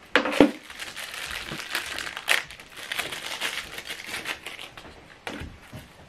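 Plastic packaging bags crinkling and rustling as they are handled and opened, with a few sharp clicks.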